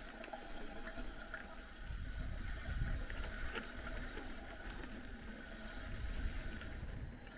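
Trek Roscoe 6 mountain bike ridden over a rough dirt and stone track: tyres crunching on the ground, with small clicks and rattles from the bike. Wind buffets the camera microphone in a low, uneven rumble.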